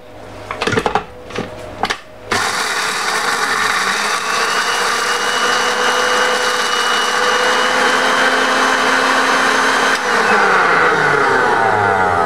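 Panasonic blender's grinding jar chopping dried chilies with garlic and shallots. A few clicks as the jar is seated, then the motor starts about two seconds in and runs steadily. Its pitch falls near the end.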